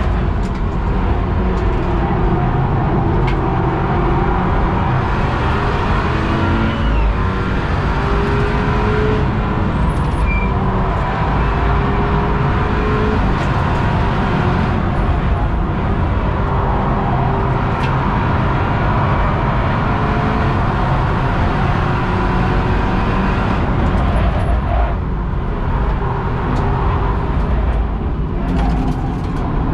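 Inside the cabin of a BMW 328i F30 at track speed: its turbocharged 2.0-litre four-cylinder engine under hard load, the engine note rising and falling with the throttle and gears, over steady wind and tyre roar.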